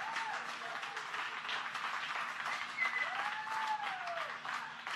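A room of mission-control staff clapping and cheering, with one long rising-and-falling whoop about three seconds in.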